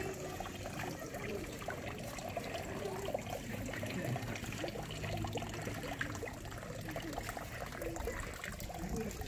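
Water trickling steadily from a stone turtle spout into a small stone basin.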